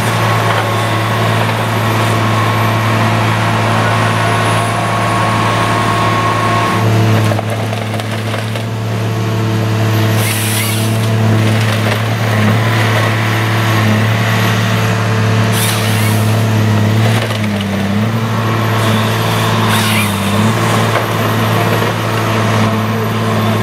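Tigercat LH845C tracked harvester's diesel engine running steadily while a Log Max 9000 harvesting head works a log, the engine's pitch dipping briefly a few times. Two short bursts of hiss come about ten and fifteen seconds in.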